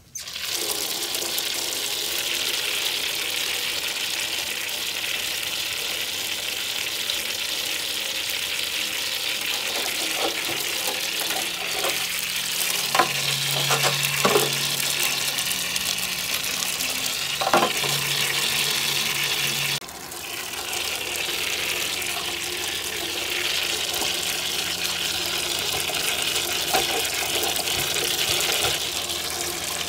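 Running water splashing into a small metal charcoal grill as it is rinsed out, hissing where it hits the still-hot metal and ash. The sound drops off briefly about two-thirds of the way through, then picks up again.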